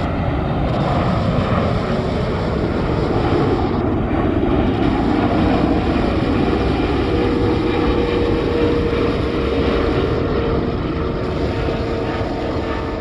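Boeing 777-300ER airliner on landing approach, its GE90 jet engines giving a steady, dense rumble and hiss. A faint steady whine comes in about halfway through.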